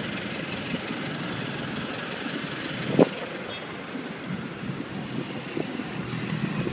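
Street traffic noise: car engines running and vehicles moving past, a steady mix of motor sound. One sharp knock about three seconds in.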